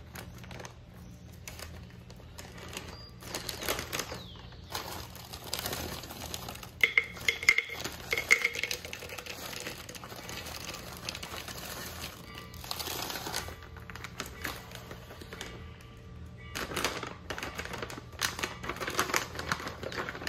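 Plastic bags crinkling as blueberries are poured into an empty plastic blender cup. The berries clatter sharply against the cup about seven seconds in, and a bag of dates rustles near the end.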